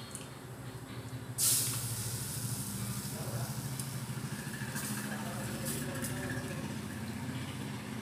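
Water sizzling on a hot tawa around a jowar bhakri, starting suddenly about a second and a half in and settling into a steady hiss, over a steady low hum.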